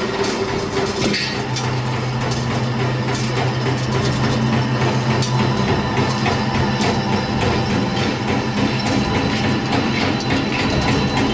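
Spring lock washer wire-coiling machine running, rolling flattened steel wire into a coil: a steady motor hum with continuous rattling and clicking of the wire and rollers.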